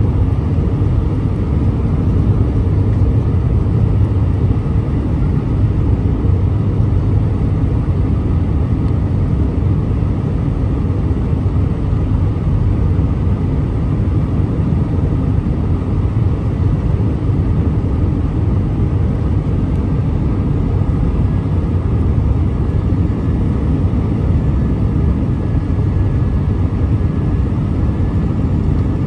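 Airbus A319 cabin noise on final approach, heard from a window seat beside the wing and engine: a steady low rumble of the engines and rushing air that keeps on evenly.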